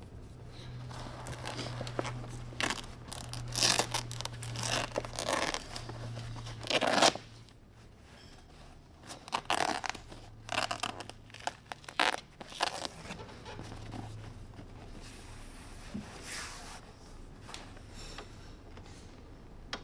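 Fabric of a Ferrari F355 Spider's convertible top being peeled off its frame by hand, in a series of irregular ripping pulls, the loudest about 4 and 7 seconds in.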